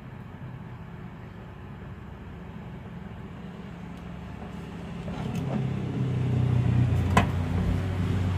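A low motor-vehicle engine rumble grows louder from about five seconds in and stays loud to the close, over a steady low hum; a single sharp click comes about seven seconds in.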